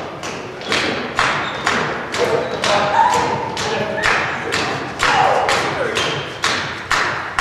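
Rhythmic stamping of dancers' feet on a hard hall floor, about two beats a second in even time, each beat echoing in the large room.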